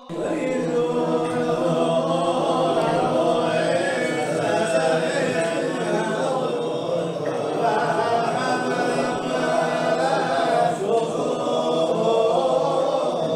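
A group of voices singing together a cappella, several voices overlapping in one sustained chant.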